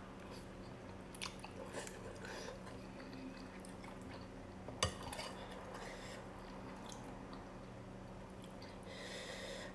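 Close-up mouth sounds of a person eating spicy instant noodles: slurping and chewing. Scattered soft clicks of the spoon and chopsticks at the bowl, with one sharp click a little before the halfway point.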